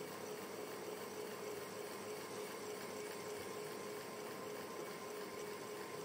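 Electric fan running steadily: an even, soft airy hiss with a faint steady hum from the motor.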